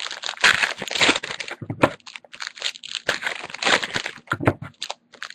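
Foil Panini Prizm trading-card pack wrappers crinkling and tearing as packs are ripped open, a run of irregular crackles with short pauses.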